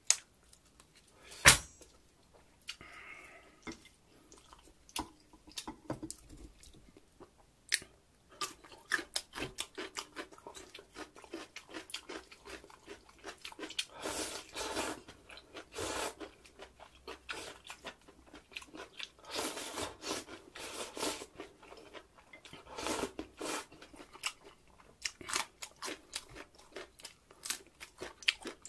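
Close-miked chewing and biting of pork-bone soup meat, with wet mouth clicks and smacking. A loud sharp click comes about a second and a half in.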